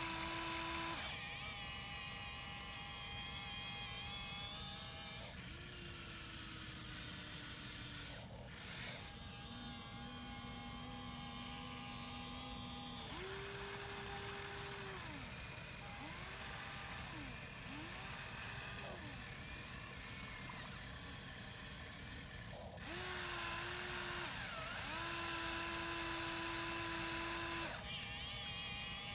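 Huina remote-control excavator's small electric motors whining as it digs. The pitch changes every few seconds as different motions start and stop, with a few quick rising-and-falling whines around the middle.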